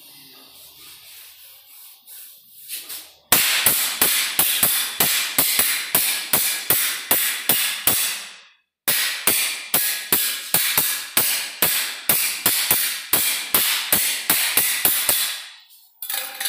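Hard tool knocking on a marble floor: a rapid, even series of sharp taps, about three and a half a second, in two runs with a short break about eight seconds in.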